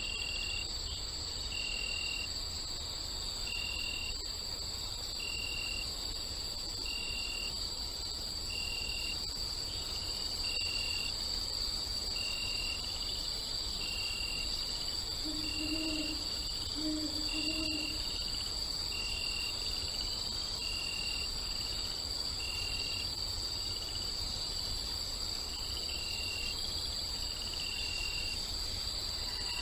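Night-time insect chorus: a steady high trill of crickets with a short chirp repeating about every second and a half, and an owl hooting twice about halfway through.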